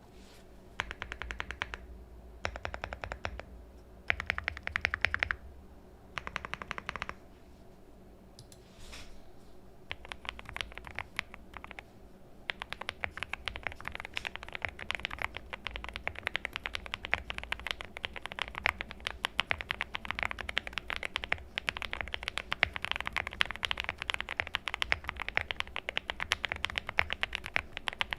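Typing on a JRIS65 custom mechanical keyboard: four short bursts of fast keystrokes in the first seven seconds, then continuous rapid typing from about ten seconds in.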